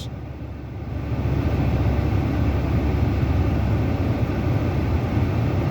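Steady low vehicle rumble that swells over the first second or so and then holds steady.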